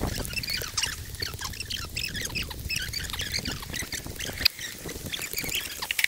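Many small animals chirping at once: short, high calls overlapping thickly, with one sharp click about four and a half seconds in.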